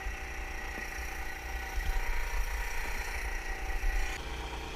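Yamaha EF2000iSv2 inverter generator running steadily on the boat, a constant engine hum made of several steady tones.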